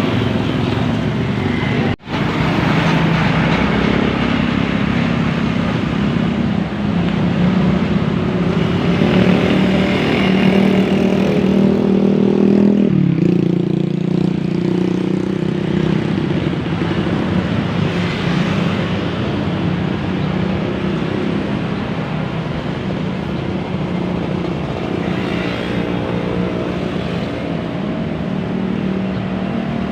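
Heavy vehicle engine running close by, its pitch rising and falling as it pulls past, with road noise. There is a brief dropout about 2 seconds in.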